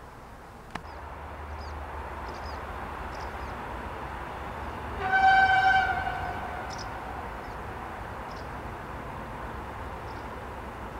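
Train horn sounding once, a single steady note about five seconds in that lasts about a second, over the low hum of the approaching train, which grows about a second in.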